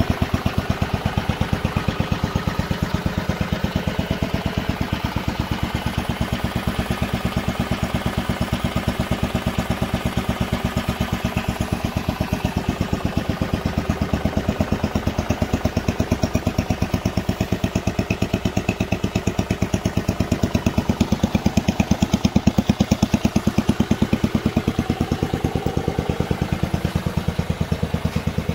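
Single-cylinder Briggs & Stratton Model 19 flathead engine of a 1960 Economy Jim Dandy garden tractor running steadily, with a rapid, even firing beat.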